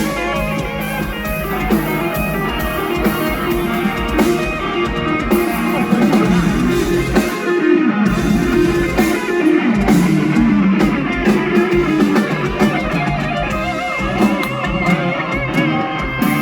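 Live mor lam band playing an instrumental break between sung verses, led by a plucked string instrument over bass and drums.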